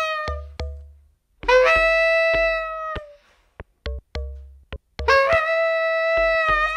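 Instrumental music: a bass clarinet holds three long notes, near the start, in the middle and again from about five seconds in, over sharp, sparse percussion clicks with short pitched pings and deep bass pulses.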